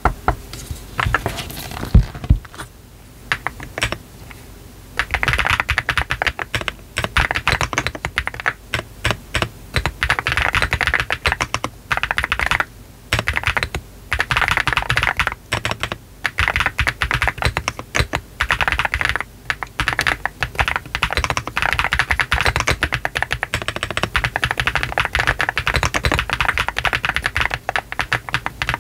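Typing on a GDK DK1-TKL brass-bottom custom mechanical keyboard fitted with Y3 switches on a 1.2 mm flex-cut PCB, all foams installed and a soft gasket mount, with PBT cherry-profile keycaps. A few scattered keystrokes at first, then steady fast typing from about five seconds in, with short pauses.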